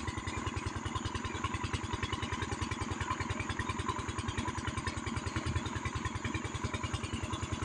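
Small engine idling steadily, an even low beat of about ten pulses a second.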